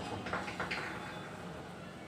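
A few light clicks of a metal spoon against a dish in the first second, then faint room tone.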